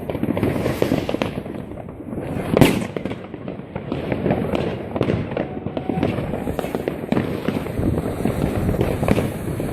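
Fireworks going off: a dense, continuous crackle of many small bangs, with one sharp, louder bang about two and a half seconds in.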